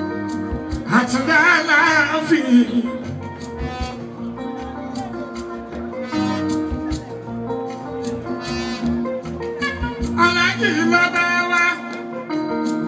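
Live Fuji band music: electric guitar and bass hold a steady groove while a man sings two long, wavering melismatic phrases into the microphone, about a second in and again about ten seconds in.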